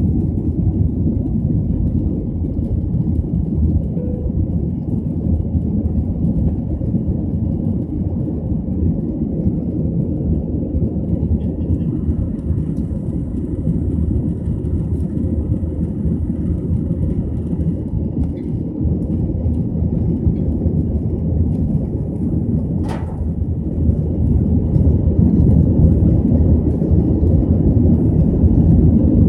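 Airbus A320's jet engines at takeoff power heard inside the passenger cabin: a steady low rumble through liftoff and the initial climb. A single sharp click about three-quarters of the way through.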